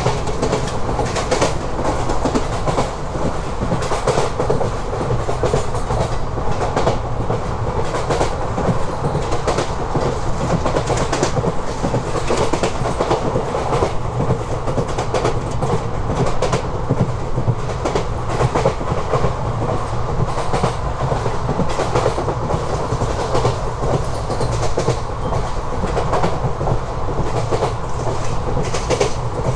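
ICF-built Indian Railways passenger coach running on the track: steady wheel-on-rail rumble with frequent sharp clicks as the wheels pass over rail joints.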